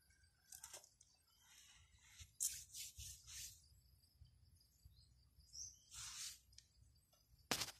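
Hands rubbing together, palm on palm, in a few short, faint rustling strokes, over a steady high-pitched background tone.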